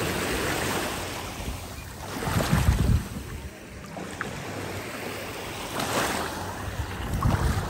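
Sea waves washing in on a beach, a steady wash of surf with wind on the microphone, and two louder, low rushes of surge, one about two and a half seconds in and another near the end.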